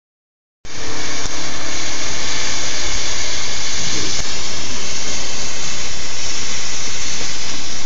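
Ground firework fountain spraying sparks with a loud, steady hiss.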